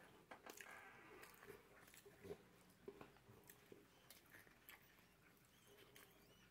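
Faint chewing of a mouthful of sandwich, with soft scattered mouth clicks.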